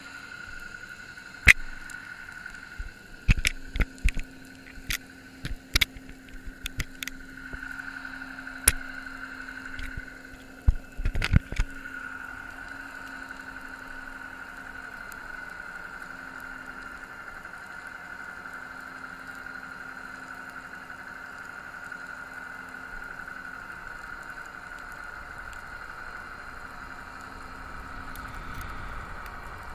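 Underwater sound heard through a GoPro's waterproof housing: a steady hum with a higher whine above it. In the first dozen seconds there is a run of sharp knocks and taps on the housing, one loud knock soon after the start and a close cluster about eleven seconds in.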